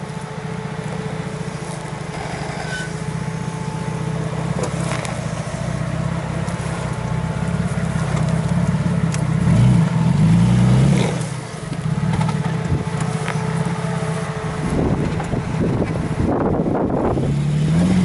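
Jeep Cherokee XJ engine running at low revs as it crawls over a dirt and rubble mound, the revs rising about ten seconds in and again near the end. Stones and dirt crunch under the tyres.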